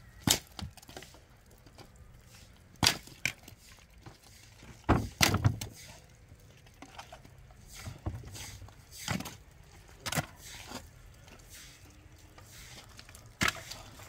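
Dry wooden sticks being snapped by hand and underfoot: several sharp cracks and splintering snaps a few seconds apart, the loudest cluster about five seconds in.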